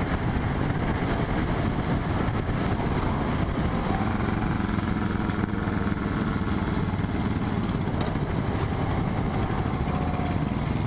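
Motorcycle engine and exhaust running at a steady cruise, the exhaust muffled by a fitted Volkswagen Beetle silencer.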